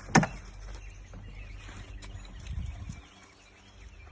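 A single sharp knock just after the start, then a faint outdoor background with birds chirping.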